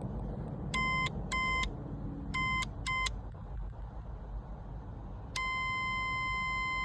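A series of short electronic beeps at one steady high pitch, in two pairs, then a single long beep of about two seconds near the end.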